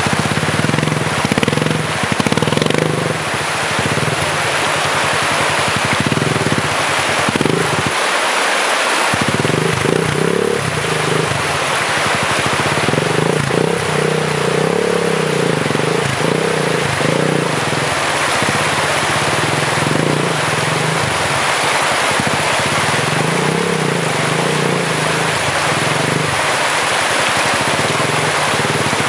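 A Kawasaki dirt bike's engine running and revving unevenly as the bike is worked through the water, over the steady rush of a rocky stream.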